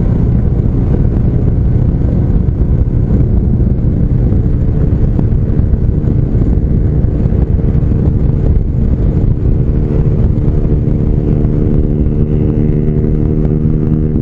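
Motorcycle engine running at a steady pitch while riding, under a rush of wind noise. Near the end the pitch glides down as the throttle is eased off.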